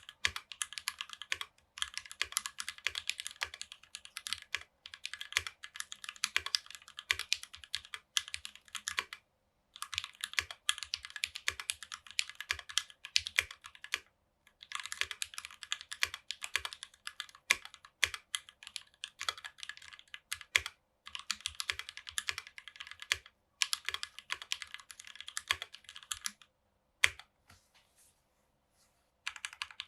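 Mechanical keyboard being typed on: lubed and filmed JWK Alpaca linear switches in a Tofu60 with a brass plate and GMK keycaps, in fast runs of keystrokes broken by short pauses, with a longer pause near the end. The brass plate gives the keystrokes a certain hardness.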